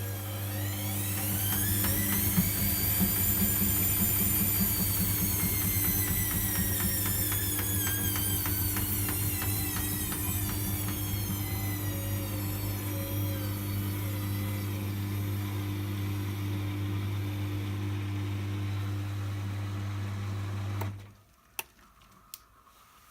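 Whirlpool washing machine's motor whining as the drum speeds up over the first few seconds, then slowly falling in pitch as it slows, over a steady low hum. The machine goes quiet suddenly about 21 seconds in, followed by a few sharp clicks.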